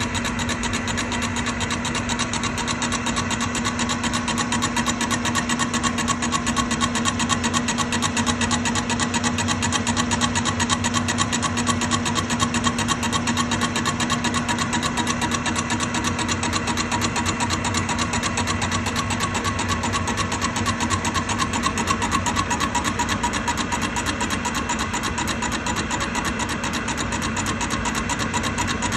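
Manual lathe spinning at 250 RPM while a polished carbide insert takes a facing pass across the rear mounting face of a cast aluminium water pump housing. A steady machine drone with a constant hum throughout.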